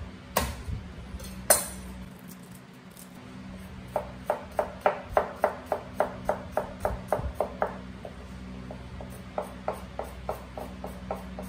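Kitchen prep sounds: two sharp knocks, then a run of quick, even strikes at about four a second for several seconds, and a lighter run near the end.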